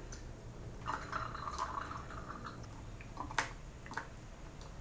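Thick pepper sauce pouring from a glass jar through a metal funnel into a glass bottle: a faint trickle in the first half, then a few light ticks, the sharpest about three and a half seconds in.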